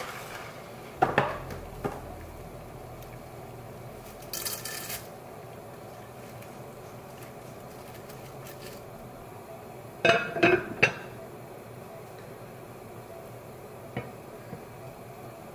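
Metal cookware clinking at the stove as dry spaghetti is dropped into a pot of boiling water and stirred with metal tongs: two sharp clinks about a second in, a brief rustle, then three loud clinks of the tongs against the pot in quick succession about ten seconds in. A light knock near the end comes as the lid is set on the pot.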